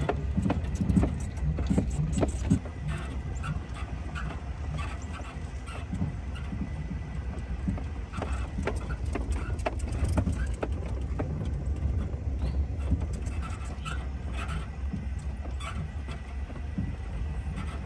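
Vehicle driving along a rough, muddy dirt track: a steady low engine-and-road rumble with frequent irregular knocks and rattles from the bumps.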